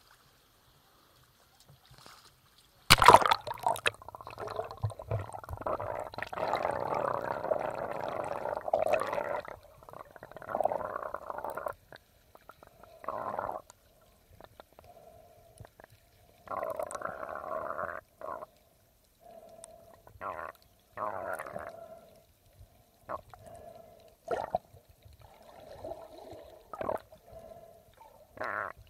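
Muffled water sounds picked up by a camera held underwater: a sharp knock about three seconds in, then several seconds of dense, dull sloshing, then shorter bursts that come and go every second or two.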